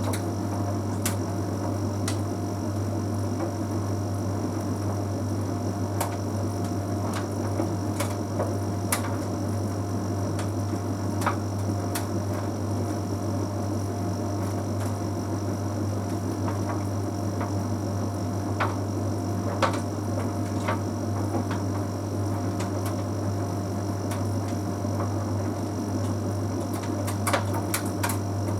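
Bosch Series 6 heat pump tumble dryer running mid-cycle: a steady low hum with a fixed higher whine. Light clicks and taps come at irregular moments as the load tumbles in the drum, with a small cluster near the end.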